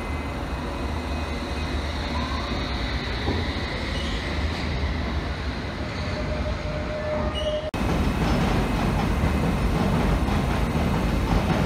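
London Underground S-stock electric train at a station platform: steady running noise with faint rising electric whines from the traction equipment, then after a sudden cut about two-thirds of the way through, louder rumbling wheel-on-rail noise as the train moves along the platform.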